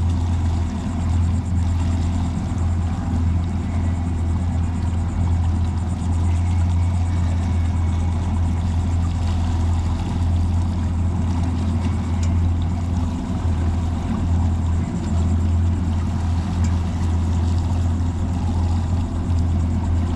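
Boat's outboard engine running steadily under way, a constant low hum over a rush of wind and water.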